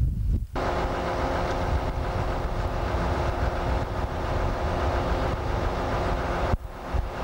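A brief low rumble of train wheels opens the sound. After it, the diesel engine of a DE II diesel-electric multiple unit idles steadily with an even hum, heard from aboard while the train stands at a red signal.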